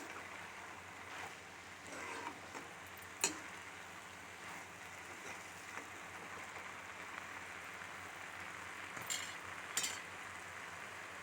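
Karmata bhaji (leafy greens) frying in a pan with a steady, quiet sizzle, broken by a few sharp clicks of a utensil against the pan: one about three seconds in and two close together near the end.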